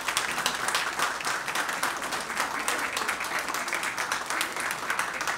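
Audience applauding: many hands clapping steadily and densely.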